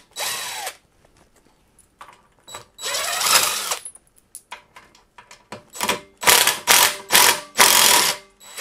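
DeWalt cordless impact driver running in short bursts to back out factory-tightened bolts on the chair's frame. One burst at the start and one about three seconds in, then a quick run of several bursts near the end. Small metallic clicks of the bolts and bit sound between bursts.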